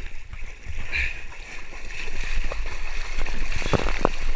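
Lake water splashing and sloshing around a camera held at the waterline, muffled as the microphone dips under the surface, over a steady low rumble; a few sharper splashes near the end.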